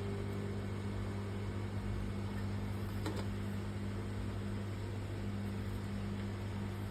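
Steady electrical hum with a low and a higher tone, from a bench DC power supply feeding current into the graphics card's shorted 5 V rail to heat and reveal the failed part. A faint click about halfway through.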